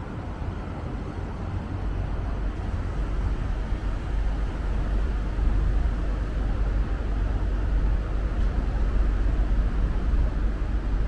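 Steady low rumble of city road traffic, growing gradually louder.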